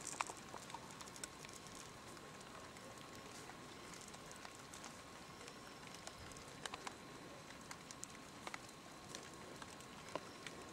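Faint steady background hiss with a thin steady tone and scattered soft clicks and ticks, a few bunched together about two-thirds of the way through.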